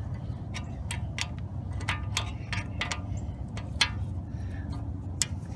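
Irregular run of light metallic clicks and ticks from tools and brake parts being handled, a few sharper than the rest, over a steady low hum.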